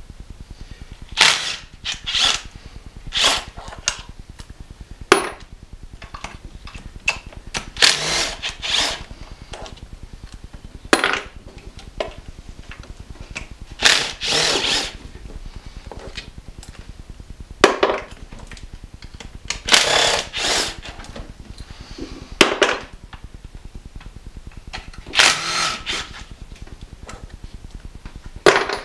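Cordless power tool spinning a socket in about ten short bursts, loosening tight 8 mm valve-cover bolts on a 4.6-litre V8, with sharp clicks between bursts.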